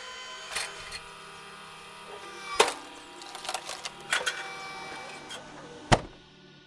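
Electric log splitter humming steadily as it presses a log, with several sharp cracks and knocks as the wood splits and the pieces fall, the loudest about two and a half seconds in and again near the end.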